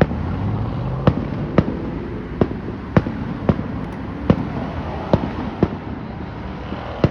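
Fireworks grand finale: a quick series of sharp booms, about one every half second to second, over a continuous rumble and crackle of shells bursting.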